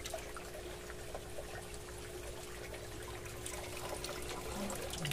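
Water trickling and dribbling back into a plastic barrel as a fine cloth net is lifted out, draining to strain out daphnia.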